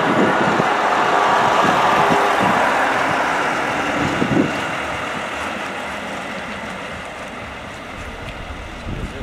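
DB Class 628 diesel multiple units, several sets coupled together, moving past with their underfloor diesel engines running and wheels rolling on the rails. The sound is loudest about the first two seconds and slowly fades, with a few low knocks.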